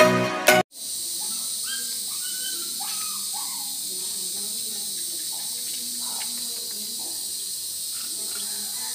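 An electronic intro tune cuts off under a second in. Then a steady, high-pitched chorus of insects sounds outdoors, with faint distant voices.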